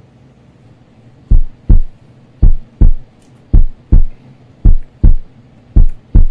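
Heartbeat sound effect: five pairs of loud, deep, low thumps in a lub-dub rhythm, about one pair a second, starting about a second in.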